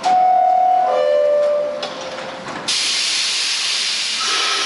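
R46 subway car's two-note descending door chime. About two and a half seconds in, a sudden loud hiss of released air starts and keeps going. Near the end the train's motors begin to whine as it starts to pull out.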